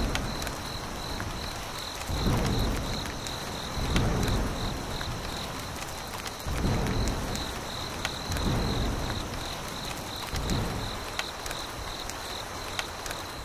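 Steady rain with several low rolls of thunder, under a steady pulsing insect chirp.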